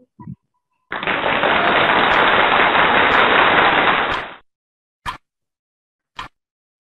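Loud rough noise coming over a video call from a participant's open microphone, lasting about three and a half seconds and stopping abruptly, then two short clicks about a second apart.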